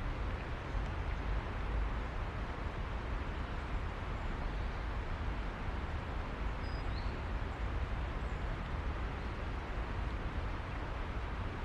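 Steady outdoor background noise with a low rumble, and a brief faint high chirp about seven seconds in.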